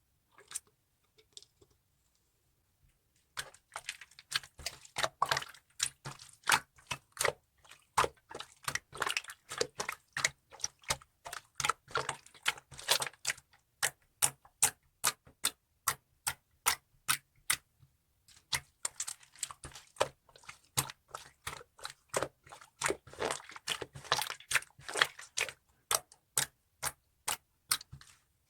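Slime being pressed and squished by hand, giving fast runs of sharp popping clicks from trapped air. The clicking starts about three seconds in and pauses briefly about two-thirds of the way through.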